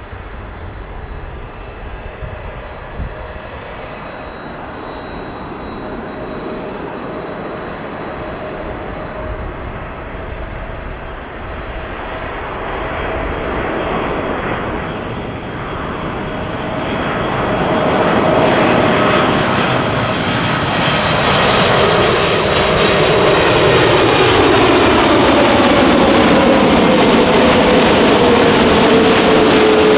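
Boeing 747-8F freighter's four GEnx jet engines growing steadily louder as the aircraft approaches, with a thin steady high whine. Over the last third the main engine tone glides down in pitch as the aircraft passes.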